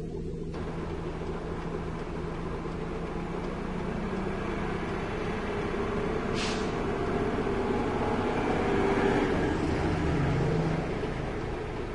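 Oncoming heavy truck's engine rumbling past, growing louder as it comes alongside and falling away after it passes, over the steady road and engine noise of the vehicle being filmed from. A short hiss about six and a half seconds in.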